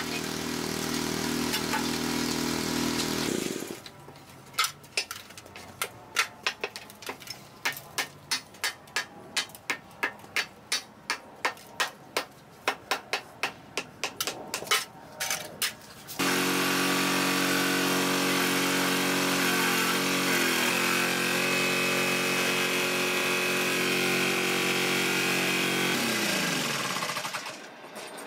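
Finishing a thermite rail weld. First the hydraulic weld trimmer's power unit runs steadily and stops about three seconds in. Then a hand hammer strikes the hot weld excess about two dozen times, roughly twice a second, and after that a rail profile grinder runs with a steady high whine and winds down near the end.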